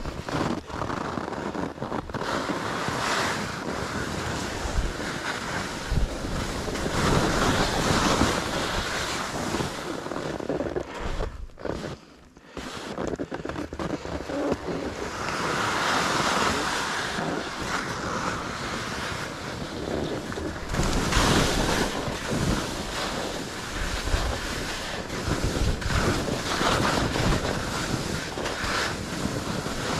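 Edges scraping and carving through choppy snow on a steep run, with wind rushing over the microphone. The noise swells and eases with each turn and drops away briefly about twelve seconds in.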